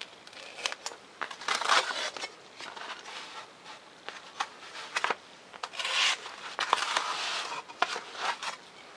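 Scratchy rasping of 3mm Depron foam sheet being cut with a razor knife along a ruler and the foam pieces being handled. There are two longer scratchy strokes, about a second and a half in and again about six seconds in, with scattered light clicks between them.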